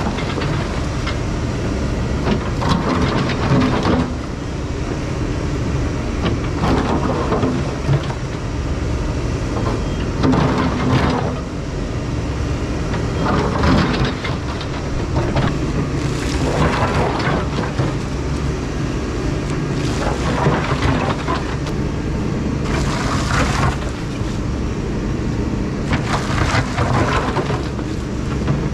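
Takeuchi excavator's diesel engine running under load as its bucket digs into mud and riprap, with rock scraping and clattering against the bucket every few seconds.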